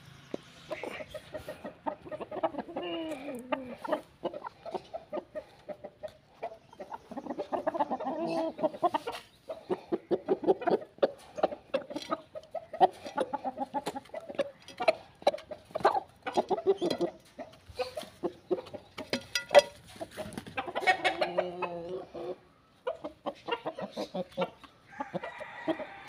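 Chickens clucking while they peck at grain and crumbled dry roti in a clay feeding dish, their beaks tapping the dish in many quick, sharp clicks.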